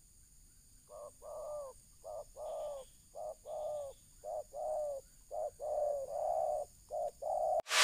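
Spotted dove cooing: a repeated two-part coo, a short note then a longer one, about once a second, growing louder toward the end.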